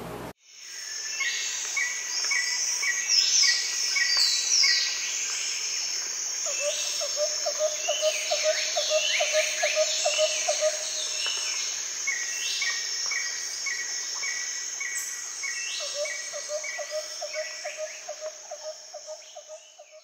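Chorus of birds and insects: a run of quick repeated chirps, many short falling whistles over a steady high whine, and a rapid low trill that comes and goes, fading out near the end.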